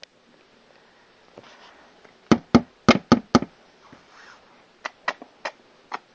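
Sharp knocks or taps: a quick run of five loud ones a little over two seconds in, then four or five lighter ones near the end.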